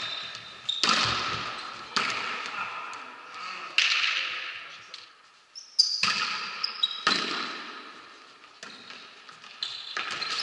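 Volleyball rally in a reverberant sports hall. Several sharp ball strikes, each with a long echoing tail, are mixed with short high-pitched squeaks of shoes on the court floor.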